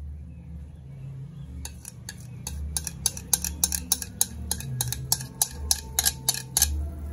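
A metal spoon tapping and scraping beaten egg out of a bowl into a pot: a quick run of sharp clicks, about four a second, starting a second or two in and stopping near the end, over a low steady rumble.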